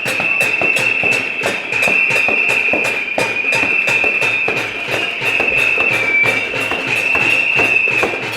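Protest noise of pots and pans being banged and whistles being blown: a steady shrill whistling held throughout over many irregular clanging strikes, several a second.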